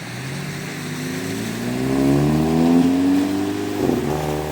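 A road vehicle's engine accelerating past, its note rising steadily, with a short break about four seconds in like a gear change before it pulls on.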